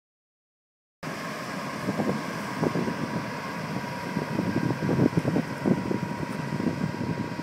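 Starting about a second in, wind buffets the microphone in irregular gusts over the steady hum of a distant motorboat crossing the river, with a faint high tone held throughout.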